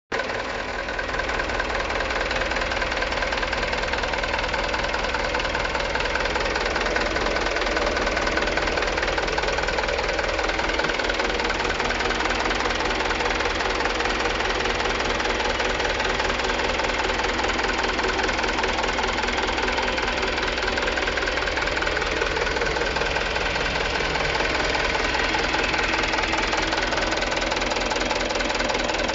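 Mitsubishi Canter HD 125 PS truck's four-cylinder diesel engine idling steadily, with an even diesel clatter, run for an engine check.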